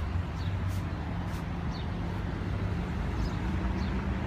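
Steady low hum of outdoor urban background noise, with a few short, high bird chirps over it.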